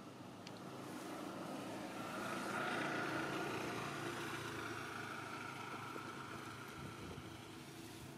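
A motor vehicle's engine passing unseen, swelling to its loudest about three seconds in and then slowly fading.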